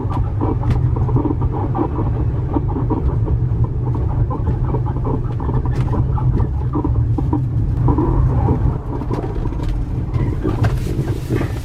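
Road rumble inside a moving camper van, with constant irregular squeaking and creaking from under the floor that sounds like an animal crying. The noise comes from a faulty add-on helper leaf spring.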